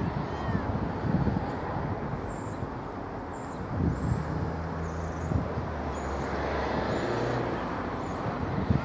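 A Class 377 Electrostar electric multiple-unit train approaching slowly. Its running hum and rumble are low and steady, with a few short high chirps above.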